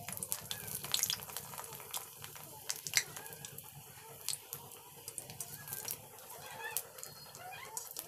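A papad frying in hot oil in a steel kadhai: the oil sizzles with a steady hiss and irregular sharp crackles and pops, and a wire-mesh strainer scrapes in the pan. A few faint animal calls sound in the background.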